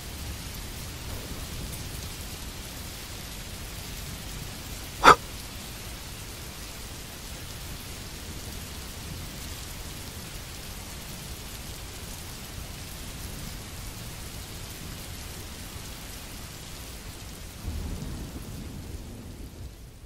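Thunderstorm sound effect: steady rain with low thunder rumbles, a louder rumble near the end, fading out at the close. A single sharp click about five seconds in is the loudest sound.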